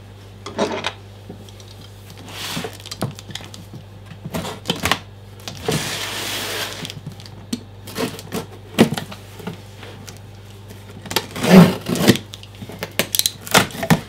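A cardboard box being handled and opened: scattered knocks and taps on the cardboard, a rasping scrape lasting about a second midway, and a louder knock near the end as the top flaps come open.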